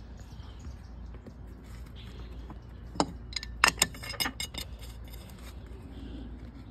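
Metal parts of a Homelite Super XL chainsaw being handled: one sharp click about three seconds in, then a quick run of clicks and clinks over the next second, over a low steady hum.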